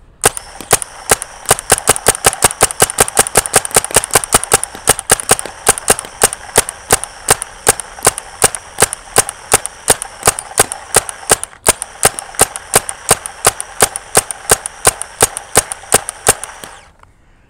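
Empire BT-4 Slice G36 mechanical paintball marker fired semi-automatically as fast as the trigger is pulled: a long, even string of sharp pops, about five a second, that stops near the end.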